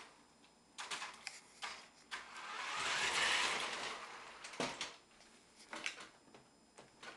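Paper and envelopes being handled: a string of short rustles and taps, with one longer hiss that swells and fades about three seconds in.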